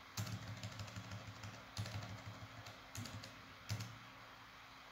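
Computer keyboard keys pressed in several short runs of faint clicks while deleting characters of code.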